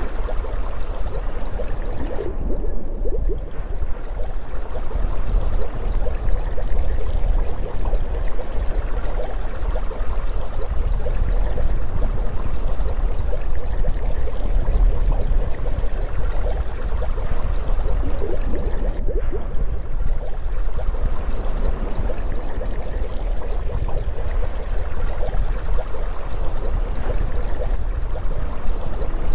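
Underwater ambience sound effect: a steady rush of moving water over a deep rumble.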